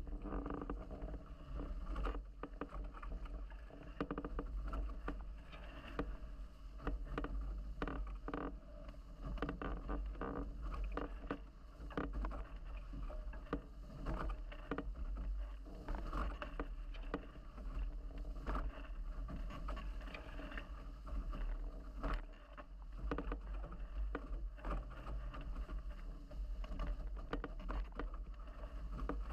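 Water rushing and splashing along the hulls of a Nacra 17 racing catamaran sailing fast under spinnaker, with frequent irregular slaps of waves against the hulls over a constant low rumble.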